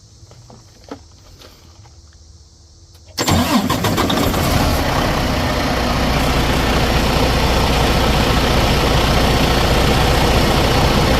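Freightliner Cascadia's Detroit DD15 inline-six diesel starting suddenly about three seconds in, then settling into a steady idle. This is its first start after a new alternator was fitted.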